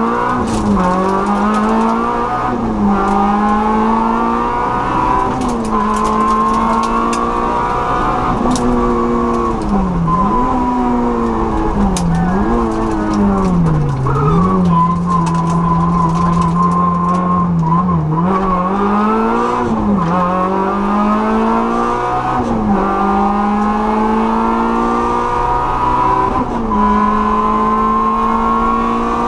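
Peugeot 106 N2 rally car's four-cylinder engine heard from inside the cabin, driven hard through the gears. Its pitch climbs in each gear and drops back at each shift. About ten to fourteen seconds in there is a run of quick drops and rises as it slows for a corner, then it briefly holds a steady pitch before accelerating again.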